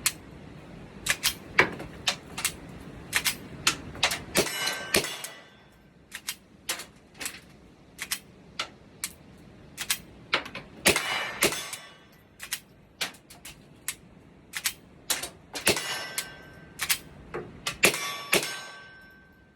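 Smith & Wesson M&P .22 pistol being fired with Winchester .22 silver-tip rounds: a long, irregular string of sharp cracks and metallic clacks, a few trailing into a short metallic ringing. The stop-start pattern comes from repeated misfires, where heavy primer strikes fail to set the rounds off.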